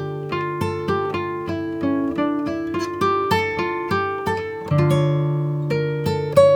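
Instrumental background music: a plucked string instrument picks a melody of single notes, a few a second, each dying away, over lower held notes.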